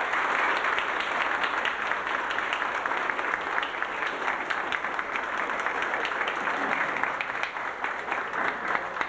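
Audience applauding: dense hand-clapping from many people that thins out toward the end.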